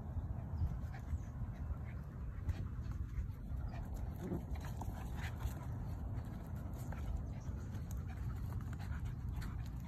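A Dalmatian and a Miniature Pinscher play-wrestling on dry dirt: dog breathing and small vocal noises with scattered scuffs and taps, over a low rumble.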